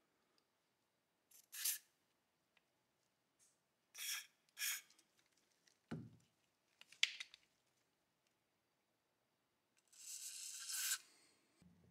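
Aerosol can sprayed through a straw nozzle into the receiver of a Remington .22 pump-action gallery rifle: three short hisses, then a longer hiss of about a second near the end. In between, a dull knock and a few light clicks.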